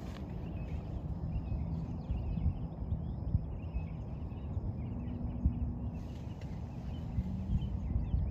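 Wind rumbling on the microphone, with small birds chirping faintly throughout.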